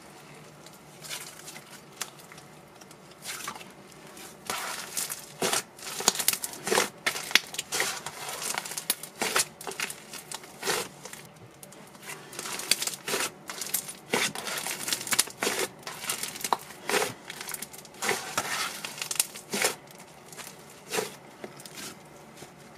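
Snow butter slime being kneaded, squeezed and stretched by hand, giving off a stream of irregular crackles and small pops. It is sparse and faint at first and grows denser and louder from about four seconds in.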